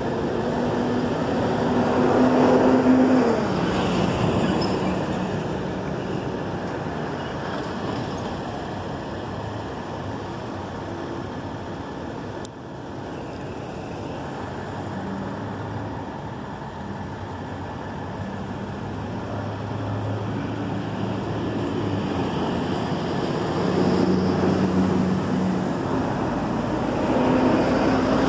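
Union Pacific freight train's cars rolling past on the rails, a steady rumble of wheels and cars. It swells louder about two seconds in and again near the end.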